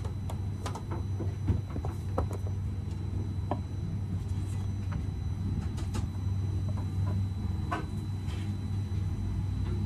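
Tableware being set down and handled on a wooden table: a string of light knocks and clicks from a lacquered box and small dishes, over a steady low hum.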